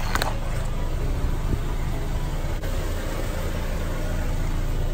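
A car's engine runs in a steady low rumble. In the first moment, the brittle hollow pink balls under the tyre finish cracking with a short crunch, and there are a couple of faint ticks later.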